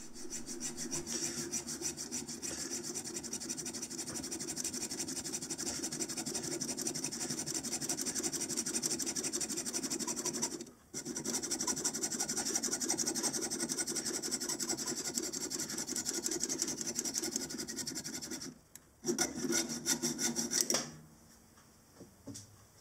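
Hand hacksaw sawing through the metal chucking spigot of a model engine flywheel held in a lathe chuck, with quick regular strokes. It stops briefly about 11 seconds in and again about 18 seconds in, then stops about 21 seconds in.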